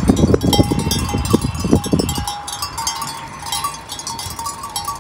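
Many small livestock bells on a grazing flock, clinking and ringing irregularly. A low rumble runs under them for about the first two seconds.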